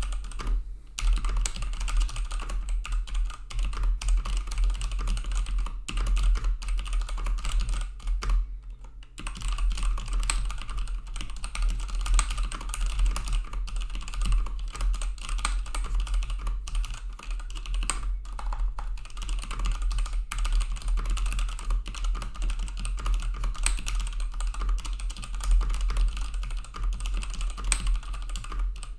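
Fast continuous typing on an MSI Vigor GK41 mechanical gaming keyboard, a dense patter of key clicks with short pauses about a second in and about a third of the way through, over a steady low hum.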